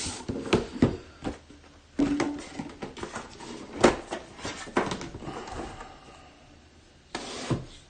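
Sealed trading card box being handled and opened: scattered rubs, taps and rustles of cardboard and plastic wrapping, with a few louder handling knocks.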